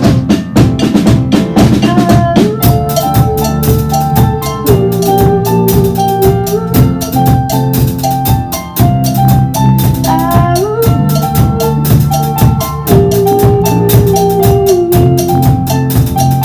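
Band playing an instrumental passage: a drum kit keeps a steady, driving beat under held melody notes that slide up into each new phrase.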